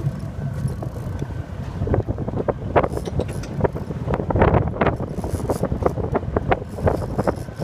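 Wind buffeting the microphone on a boat at sea, a steady low rumble, with irregular knocks and taps scattered through the middle and latter part.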